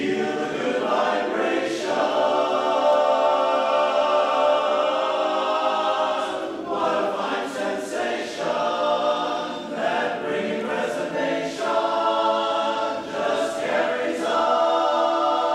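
Men's barbershop chorus singing a cappella in close harmony: many voices holding full chords together, coming in all at once and moving from chord to chord with brief breaks between phrases.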